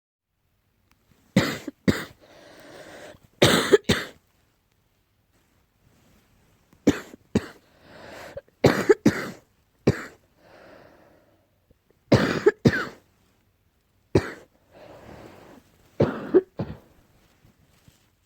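A person coughing in fits: four bouts of two to four sharp coughs, with noisy breaths drawn in between them. The uploader puts the cough down to allergy.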